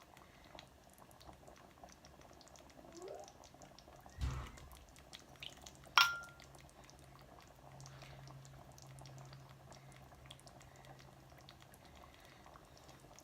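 A spoon skimming excess palm oil off the surface of thick banga soup in a pot, with faint dripping and scraping. There is a dull knock about four seconds in, and a sharp clink with a short ring as the spoon strikes the pot about six seconds in.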